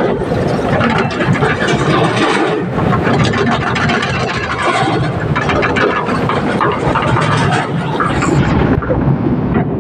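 An L&T hydraulic excavator running at work: steady engine noise mixed with dense metallic rattling and clanking.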